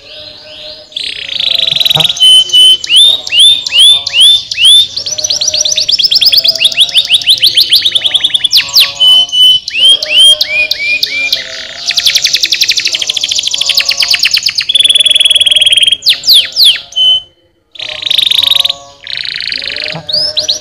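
Domestic canary singing a long, loud song of fast trills and rapid rising whistled notes, with a short break about three-quarters of the way through.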